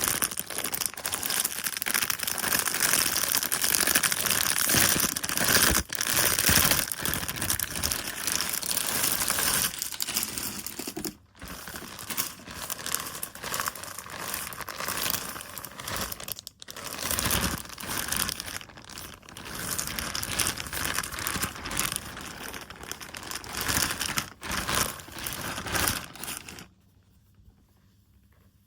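Plastic packaging crinkling and rustling as a plush toy is unwrapped, busier and louder at first, with two short breaks; it stops about two seconds before the end.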